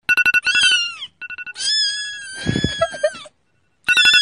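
A cat meowing in high-pitched calls. A short fluttering call falls away in pitch, a long drawn-out call follows, and another begins near the end.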